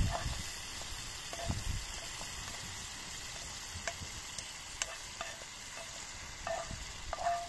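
Sliced bitter melon sizzling as it is stir-fried in a pan of chili sauce over a wood fire: a steady frying hiss, with scattered light clicks and scrapes of a wooden spatula against the pans and a short squeaky scrape near the end.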